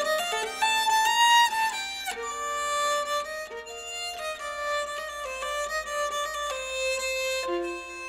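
Nyckelharpa, the Swedish keyed fiddle, played with a bow: a melody moving from note to note, with several notes sounding together.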